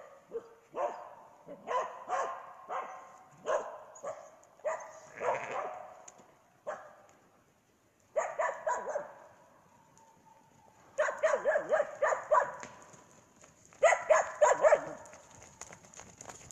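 A herding dog barking repeatedly in quick runs of short barks, with pauses between runs, the loudest runs near the end.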